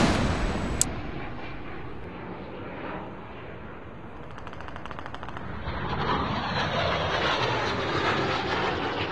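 Explosion dying away: the blast's tail with a sharp crack about a second in, then a long rumbling noise that fades and swells again, with fine crackling in the middle.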